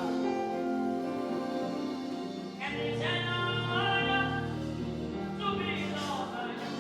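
Gospel music: held instrumental chords with a sung melody line coming in about two and a half seconds in.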